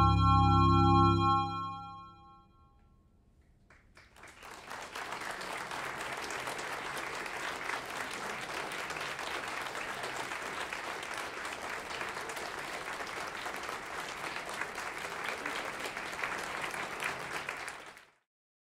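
A final sustained chord on two microtonally tuned electronic keyboards, steady tones with a slow pulsing beat, dies away about a second and a half in. After about two seconds of silence, the audience applauds steadily until the sound cuts off near the end.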